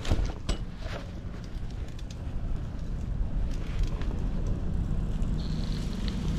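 Vintage Miyata 710 steel road bike rolling along a concrete sidewalk: a steady low rumble of tyres on pavement with wind on the camera's microphone, and a few sharp knocks in the first second.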